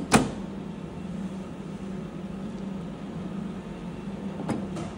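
A single sharp knock from the side door of a Saeco Magic bean-to-cup coffee machine being pushed shut, just after the start, then two faint clicks near the end, over a steady low hum.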